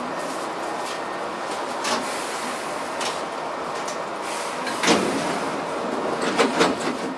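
Steady running noise of a Hankyu electric train heard from behind the driver's cab, with a faint steady tone, and a few knocks and clunks, most of them in the second half, bunched together near the end.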